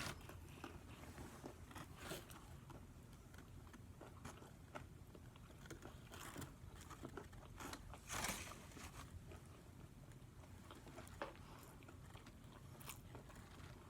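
A person chewing a mouthful of crispy fried chicken sandwich close to the microphone, faint crunches and wet chewing with a few louder crunches about two and eight seconds in.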